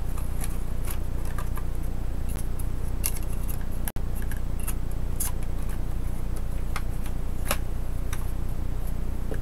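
Scattered light clicks and ticks of plastic as hands handle and pry the Samsung GT-8000 laptop's plastic case halves, over a steady low electrical hum that is the loudest sound. The hum cuts out for an instant about four seconds in.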